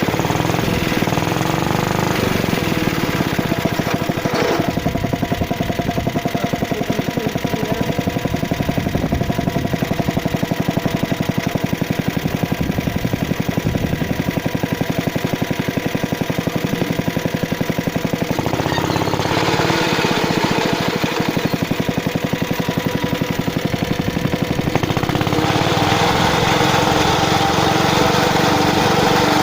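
75cc Suffolk two-stroke petrol engine of a Suffolk Squire cylinder lawn mower running steadily with a rapid, even firing beat. It picks up briefly about two-thirds of the way through, then runs a little faster and louder near the end.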